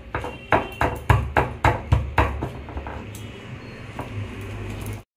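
Stone pestle pounding garlic and spices into a wet paste in a stone mortar: a quick run of dull knocks, about three a second, that grows softer and sparser after about two seconds.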